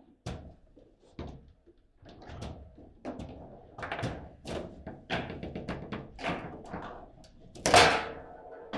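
Table football in play: a quick, irregular run of sharp knocks and clacks as the ball is struck by the rod figures and rattles around the table, with one loud thunk near the end.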